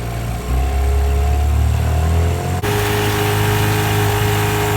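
9.9 hp Mercury outboard motor running, its revs climbing slowly, then an abrupt jump to a higher, steadier running note a little past halfway.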